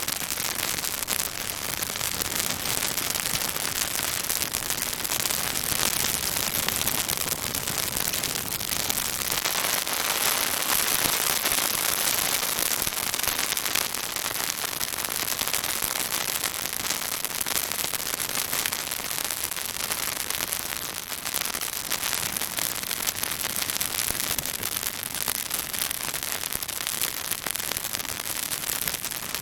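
Pine branches burning in a bonfire, crackling and popping thickly over a steady hissing sizzle, a little louder about ten to thirteen seconds in.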